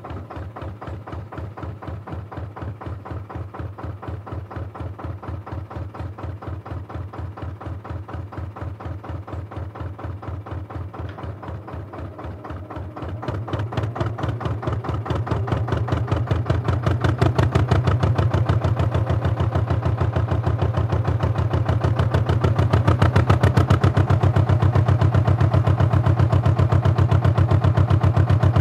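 A canal narrowboat's diesel engine, heard from on board, running with an even chugging beat. About halfway through it is opened up and grows louder, with a stronger low throb, as the boat speeds up.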